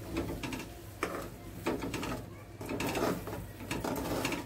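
A steel spoon stirring thick masala gravy in a metal kadai, mixing in fresh yogurt. It gives a series of uneven scrapes and clinks against the pan.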